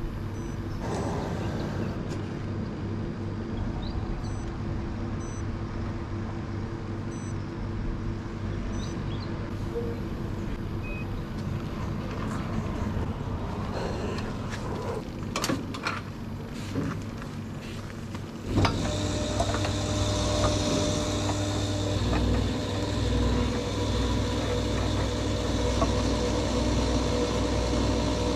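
Yamaha Ténéré 700's parallel-twin engine running on the move, with wind and road noise. About 18 seconds in the sound steps up abruptly, louder and with more hiss.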